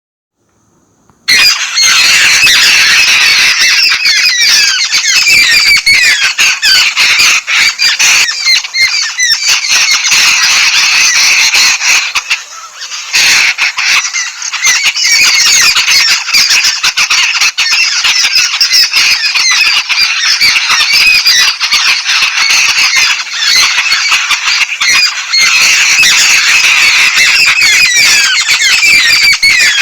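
A flock of yellow-billed babblers chattering and squawking, many harsh, squeaky calls overlapping without a break. It starts about a second in and dips only briefly partway through.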